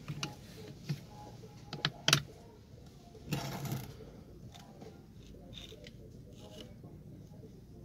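Flat-blade screwdriver clicking and scraping against the retaining screw inside a cut-open drill chuck: a few sharp metal clicks in the first two seconds, a short scrape about three and a half seconds in, then faint ticks.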